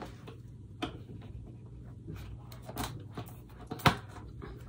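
Cardboard box of paint bottles being handled and slid open: scattered light taps and rustles, with one sharp click a little before the end.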